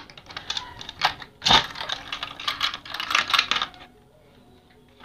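Metal toilet-seat hinge fittings clicking and clinking against the ceramic toilet rim as they are handled into place: a run of irregular sharp clicks with one louder knock about one and a half seconds in, stopping a little before the end.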